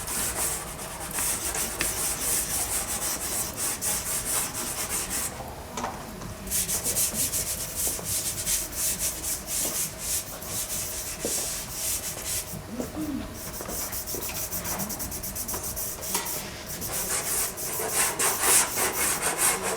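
Dry pastel sticks scratching across pastel-primed paper in quick, dense back-and-forth strokes, with short pauses about five and a half and twelve and a half seconds in.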